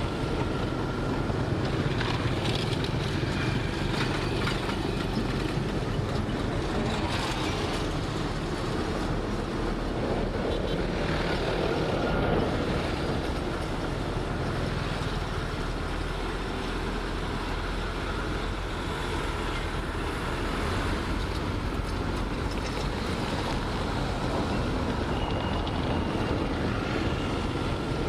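Heavy earthmoving machine's diesel engine running steadily under work, with a rough mechanical din.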